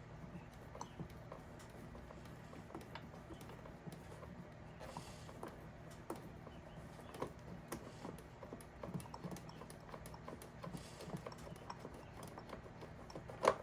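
Scattered small clicks and taps of hands unscrewing a spark plug wire from a motorcycle ignition coil, over a faint steady low hum.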